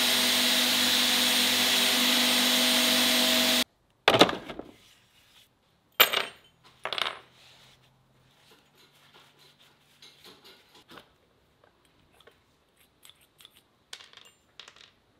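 Belt grinder running steadily with a hum while a drill-bit spike spun in a cordless drill is ground against the belt; it cuts off abruptly about four seconds in. Then a few sharp metallic clinks as steel drill bits and brass shell casings are set down on a wooden bench, followed by faint light clicks as the parts are handled.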